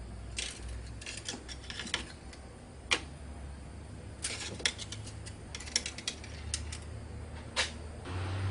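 Scattered light clicks and taps of a Nissan 350Z's engine-oil dipstick being pulled from its tube, wiped and pushed back in to check the level after an oil change. A low steady rumble runs underneath.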